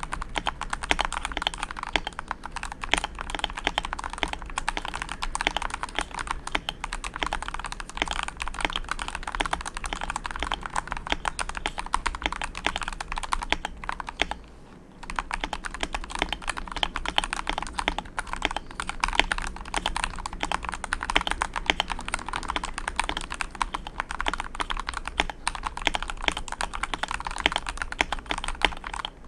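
Fast, continuous typing on a Vortex M0110 mechanical keyboard with Gateron G Yellow Pro linear switches: a dense, steady run of key strikes. The typing pauses briefly about halfway through.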